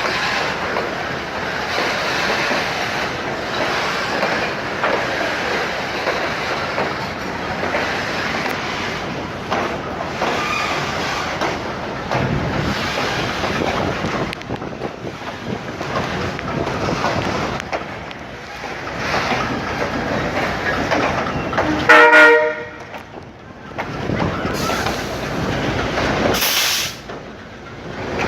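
Train rolling along the rails, a steady rumble with clatter from the wheels and cars. About 22 s in comes a short, loud horn blast, after which the train noise drops for a while.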